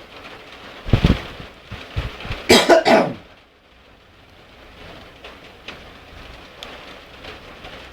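A person coughing: one short cough about a second in, then a louder, longer bout of coughing around two and a half seconds. Steady rain hisses underneath.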